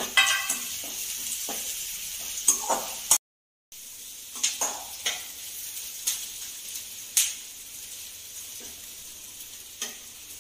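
Curry leaves and onion frying in hot oil in a metal kadhai: a steady sizzle, with a steel ladle stirring and knocking against the pan several times. The sound drops out for about half a second around three seconds in.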